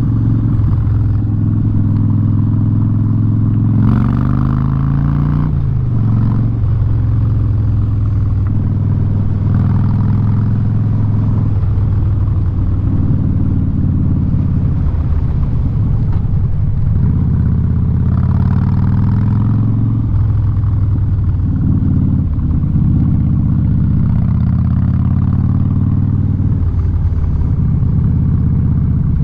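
Harley-Davidson Street Bob V-twin running loud through a Vance & Hines exhaust while riding. The engine note holds steady, rises once about four seconds in, and dips briefly several times as the throttle is rolled off and back on.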